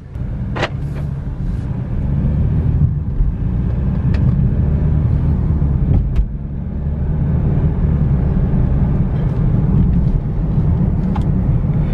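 BMW F30 3 Series engine and road noise heard inside the cabin while driving: a steady low rumble that grows louder about two seconds in, with a few sharp clicks.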